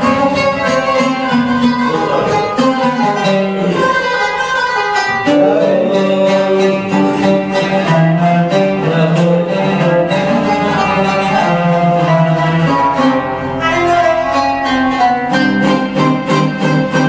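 Oud and qanun playing an instrumental passage of Arabic classical music together, with quick runs of plucked notes.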